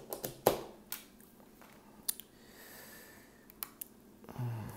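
Light clicks and taps of an opened iPhone 6S and its screen assembly being handled, the sharpest about half a second in, with a few more scattered through. A short low hum comes near the end.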